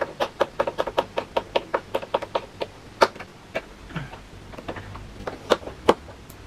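Hand screwdriver driving a screw to fasten a TV stand foot onto the TV, giving a quick run of small sharp clicks, several a second, for the first few seconds, then scattered clicks with a few louder ticks.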